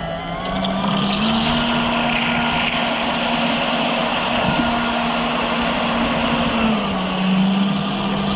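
Electric motor and jet pump of an RC jet boat running under throttle, heard from on board, with water rushing and spraying past the hull. The motor's whine rises in pitch about a second in as it speeds up, holds steady, then drops a little near the end.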